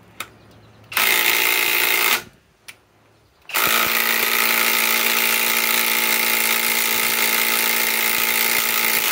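Kobalt 24 V max right-angle impact wrench hammering, driving a long lag bolt tighter into wood: a burst of about a second, then after a short pause a steady run of about five and a half seconds.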